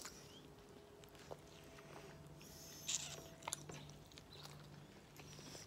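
Faint chewing and lip smacks of someone eating a sushi roll, with a few sharp clicks and a short hissy smack about three seconds in.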